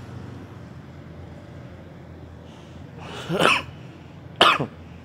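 A man coughs twice while smoking a cigarette: a longer cough about three seconds in and a short sharp one a second later. A steady low hum runs underneath.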